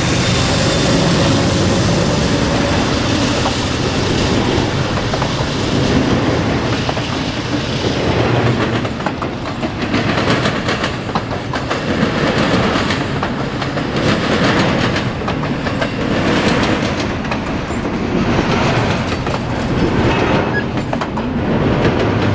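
Norfolk Southern freight train passing close by: the diesel locomotives going past at first, then double-stack intermodal container cars rolling by, the wheels clattering over the rail joints with the sound swelling about every two seconds.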